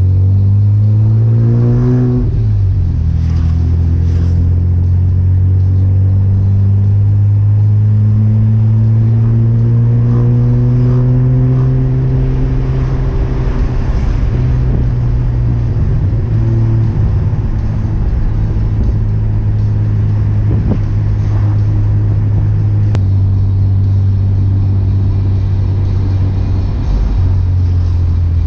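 Naturally aspirated 3.0 12-valve inline-six (C30NE) of a 1994 Chevrolet Omega running through a 2.5-inch exhaust with two sport mufflers while driving. It pulls up in pitch, drops at a gear change about two seconds in, climbs slowly for the next ten seconds, then settles to a steady cruise.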